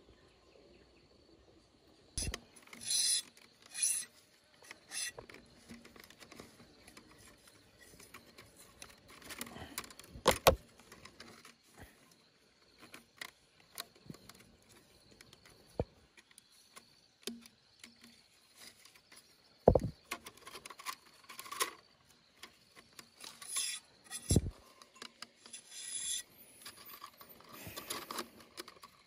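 Thin split-bamboo strips being woven by hand, rustling, scraping and clicking against each other, with a few sharper knocks.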